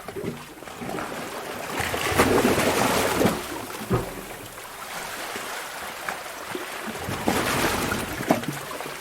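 Sea cave ambience: waves washing into the cave and sloshing, rising in two swells of rushing water a few seconds apart. A few short, sharp knocks and splashes come in between.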